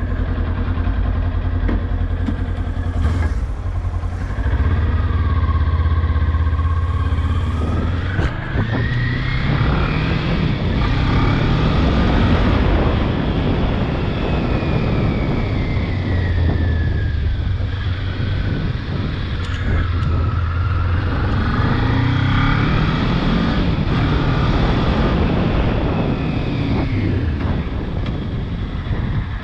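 Kawasaki Ninja 400's parallel-twin engine heard from the rider's helmet as the bike rides through town. Its pitch climbs under acceleration about eight seconds in, drops as the rider eases off mid-way, then climbs and falls once more in the second half, with wind noise over the microphone as speed builds.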